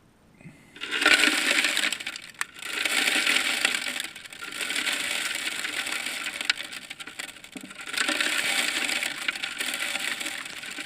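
Birdseed being poured into the chimney of a cedar bird feeder, a dense rattle of small seeds falling onto wood and plastic. It comes in several long surges, starting about a second in, with a few sharp clicks.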